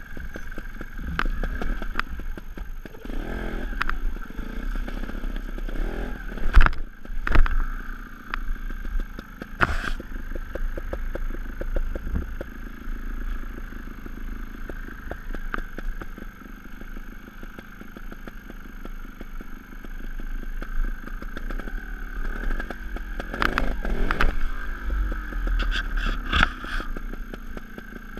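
Sherco 290 ST trials motorcycle's single-cylinder two-stroke engine revving up and down as it is ridden, with clatter and scraping knocks throughout. Two loud sharp knocks come close together about a quarter of the way in.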